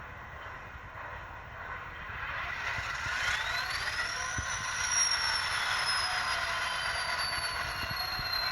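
Sound of an EMD 16-710G diesel prime mover starting up, played by an ESU LokSound decoder through the small speaker of an N scale GP60 model. The engine sound builds from about two seconds in. Around three seconds in a whine rises sharply, then falls slowly as the engine settles.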